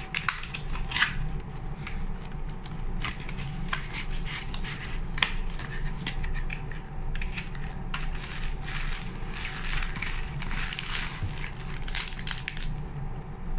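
Foam packing wrap and plastic packaging being handled and pulled from a small cardboard box. It makes irregular crinkling, rustling and scraping sounds over a steady low hum.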